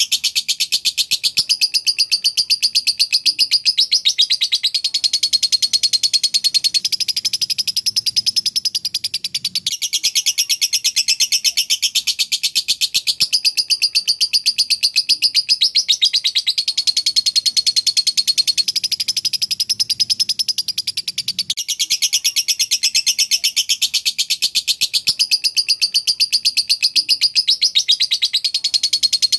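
Lovebird in non-stop rapid, shrill chattering: the fast, trilling 'semi konslet ngocok' style used as a master song. Its phrases change every few seconds, and the same run of phrases comes round about every twelve seconds.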